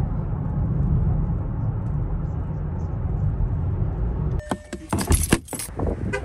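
Steady low rumble of a car driving, heard from inside the cabin. About four seconds in it cuts to a short cluster of sharp clicks and rattles.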